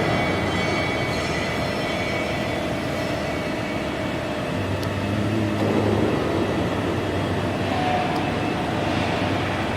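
Machinery running with a steady hum, typical of a CNC hydraulic press brake's pump. A deeper hum comes in about four and a half seconds in and drops away about a second and a half later.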